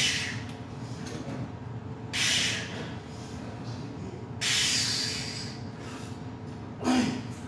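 A man's forceful hissing exhalations, one with each rep of a heavy incline barbell bench press (275 lb), coming about every two seconds. The last breath, near the end, carries a short strained grunt.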